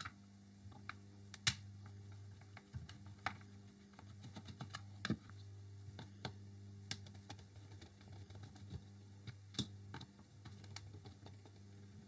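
Scattered small clicks and taps of hand screwdrivers working Torx screws out of a DeWalt DCS355 oscillating multi-tool's plastic clamshell housing, with the plastic body shifted in the hands, over a faint steady low hum.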